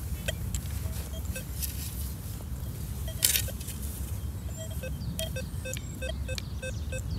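Metal detector giving short beeps as its coil sweeps the ground, a few scattered at first and then an even run of about three a second from a little past halfway, signalling a buried metal target. One sharp knock about three seconds in, over a low steady rumble.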